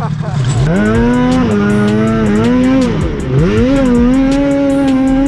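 Two-stroke snowmobile engine revving up from idle and pulling away under throttle, easing off briefly about three seconds in, then back on the throttle and holding high revs.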